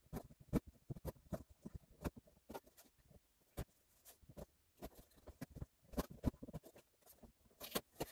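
Scissors snipping through the tape and straps of a cardboard package, heard as a run of irregular short clicks and rustles.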